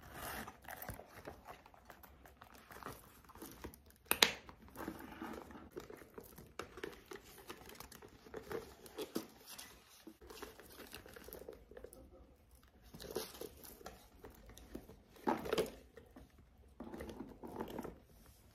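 Hands handling a small leather shoulder bag and its packaging: irregular rustling and small clicks, with one sharp click about four seconds in and another knock about fifteen seconds in.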